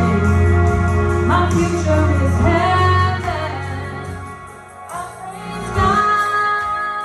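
Worship song with a singing voice over a full band and a heavy steady bass. The music drops back about four seconds in, then swells again with a long held note near the end.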